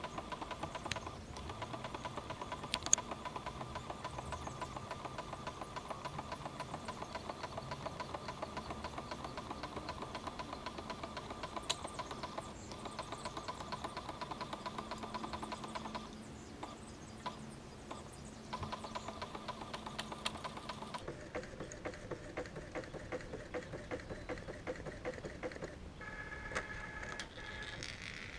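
Photo printer printing a page: its mechanism runs with a fast, rhythmic whirring. There are a few short pauses and one longer one about halfway through, and the sound changes about three quarters of the way in as the printed sheet feeds out.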